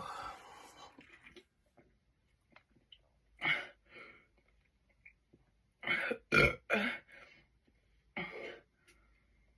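A person burping in short separate bursts: one about three and a half seconds in, three close together around six to seven seconds, and one more near the end.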